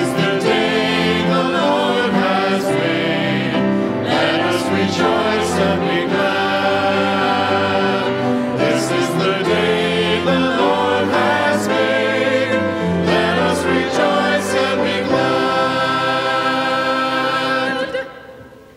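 A cantor leading a church congregation in singing the responsorial psalm, many voices on sustained notes; the singing stops about a second before the end.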